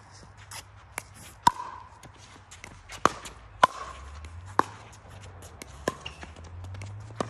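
A pickleball rally: sharp pops of paddles striking the plastic ball, about seven at uneven intervals from half a second to a second and a half apart.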